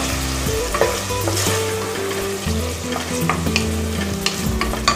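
Chicken, green peas and carrots sizzling in hot oil in a pressure cooker while a wooden spatula stirs them, with a few sharp knocks of the spatula against the pot.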